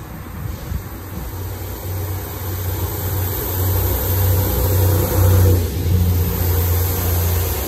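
Class 158 diesel multiple unit's underfloor diesel engines working hard, the heavy exhaust thrash of a unit under full power. The low rumble grows louder as the train closes in and is loudest about five seconds in as it passes beneath.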